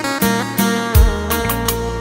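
Instrumental rumba played on an electronic organ keyboard: a lead melody with sliding, pitch-bent notes over a steady drum and bass accompaniment.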